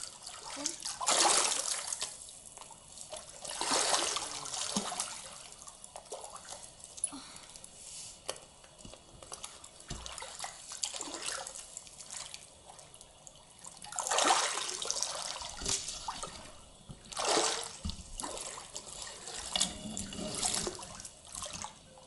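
Water splashing as a person wades and scoops at the surface with her hands: about five separate splashes, with quieter water sounds between.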